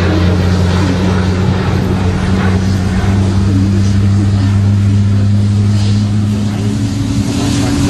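Aircraft engines running: a loud, steady low drone over rushing noise, with a tone that rises slightly near the end.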